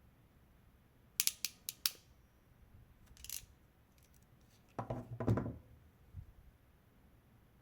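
Ratchet crimping pliers clicking as they are squeezed shut on a Dupont connector and cable. There are a few sharp clicks about a second in and a louder, denser cluster of clicks about five seconds in.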